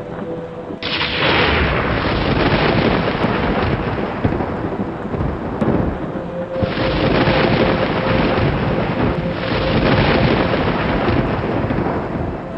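Thunder rumbling over rain, with one loud roll starting suddenly about a second in and another about six and a half seconds in.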